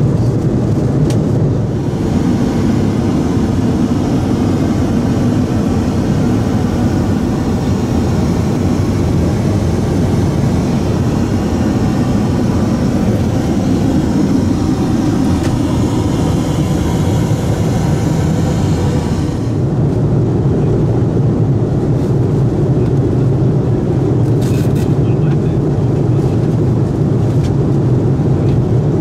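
Airbus A330-300 cabin noise in cruise flight: a steady low rush of airflow and Rolls-Royce Trent 772B engines. From about two seconds in, a brighter hiss sits over it. It stops about two-thirds of the way through, leaving the plain low rush.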